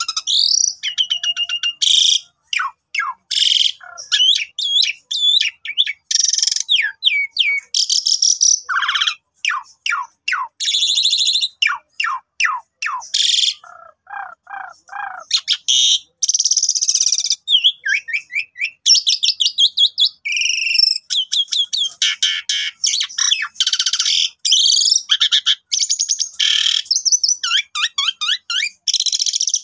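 Javan pied starling (jalak suren) singing a long, loud, varied song with hardly a break: clear whistles, fast runs of chattering notes and harsh rasping phrases, with a lower rattling trill about halfway through.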